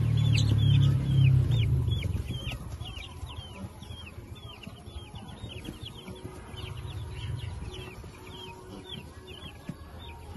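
Week-old chicks peeping continuously: short, high calls that slide downward, several a second. For the first couple of seconds a low rumble sits loudly beneath them, then fades away.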